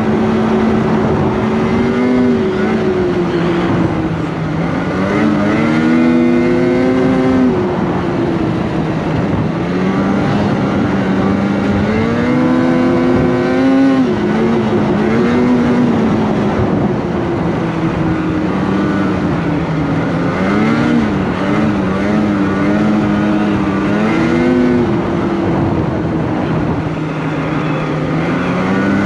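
Polaris 850 Patriot two-stroke snowmobile engine running along the trail, its pitch rising and falling again and again as the throttle is worked.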